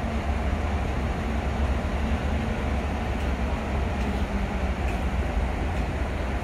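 Passenger train approaching slowly with its cab car leading: a steady low rumble.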